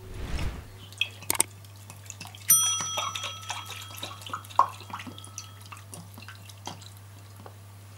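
Soy sauce poured from a bottle into a small ceramic bowl of chopped herbs and spices, trickling and dripping with small clicks. A bell-like ring starts about two and a half seconds in and fades out over about three seconds. A steady low hum runs underneath.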